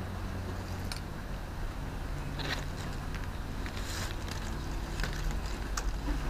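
Coconut palm leaflets rustling and crackling in short, scattered bursts as they are handled and plaited by hand, over a steady low hum.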